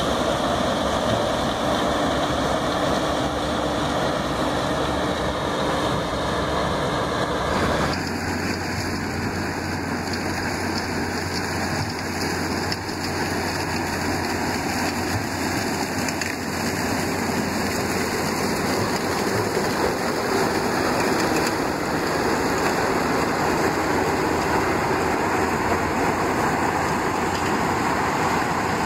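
New Holland TX-series combine harvester running and cutting grain maize through its corn header: a steady, even mix of engine and threshing noise. The tone changes abruptly about eight seconds in.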